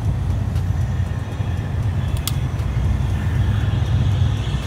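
Steady low engine rumble of vehicles or aircraft, with a single sharp click a little over two seconds in from handling the propane camp stove as its cylinder is threaded on.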